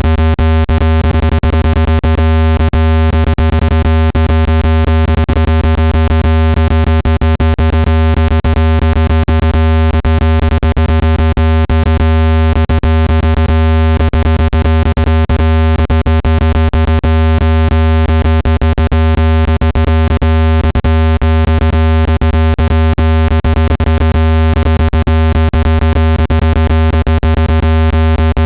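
Synthetic low-pitched buzzing tone for ejecting water from a phone speaker. It is steady and loud, heaviest in the bass and rich in overtones, with fast crackling clicks running through it.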